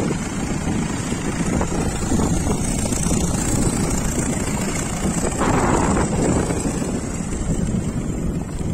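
Longtail boat engine, an exposed engine mounted on a long propeller shaft, running as the boat pulls away, with wind on the microphone.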